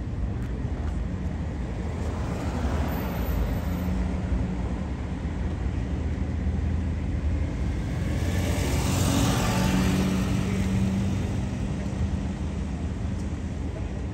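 Road traffic: a steady low rumble with vehicles driving past, the loudest passing close about nine seconds in.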